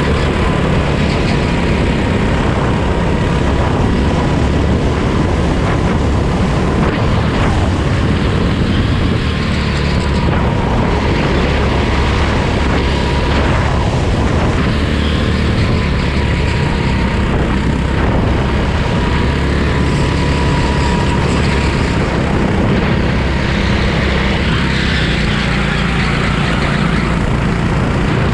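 Go-kart engine running continuously at speed.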